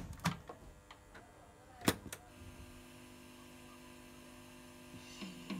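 Sharp cassette boombox: a few mechanical clicks from its deck keys, the loudest about two seconds in, then a steady hum and tape hiss as the cassette runs its blank lead-in, with the first notes of music coming in just at the end.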